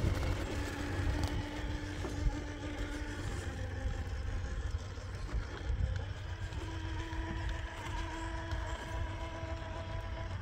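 Traxxas TRX-4 K10 RC crawler's electric motor and geared drivetrain whining as it crawls slowly over rocks. The whine eases off for a few seconds partway through, then comes back at a slightly higher pitch. A steady low rumble runs underneath.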